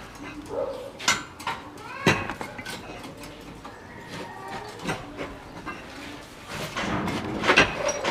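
Steel rebar clinking and knocking as a column cage is handled and its bars tied with wire, in a run of sharp metallic clicks, loudest about a second in, two seconds in and near the end. Short animal calls sound in the background.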